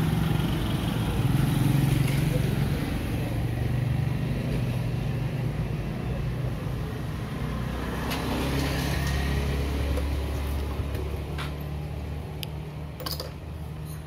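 A motor vehicle's engine runs close by with a steady low hum. A deeper rumble swells about eight seconds in and then eases off, and a few short clicks come near the end.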